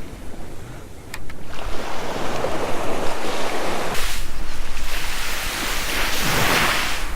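Ocean surf washing and breaking on a beach, rising and falling in swells, loudest near the end, with wind buffeting the microphone.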